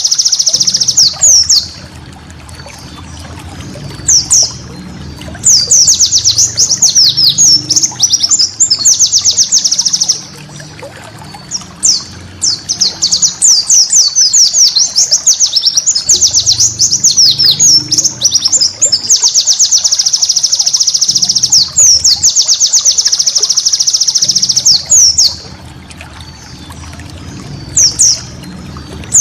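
White-eye (pleci) singing in long runs of fast, high chattering notes, each run lasting up to several seconds, with short pauses between them.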